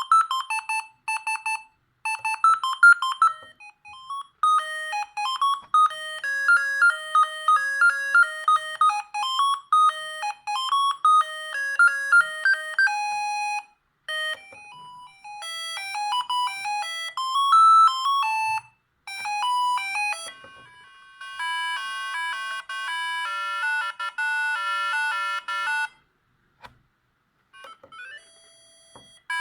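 Siemens S45 mobile phone ringtones: electronic beeping melodies played one after another, each tune running for several seconds before the next begins. There is a short pause near the end, then a rising sweep starts.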